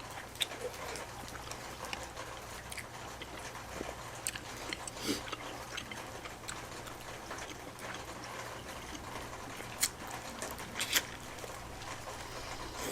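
Eating sounds from a noodle and king crab meal: scattered soft wet clicks and smacks, with a few slightly louder ones about five, ten and eleven seconds in.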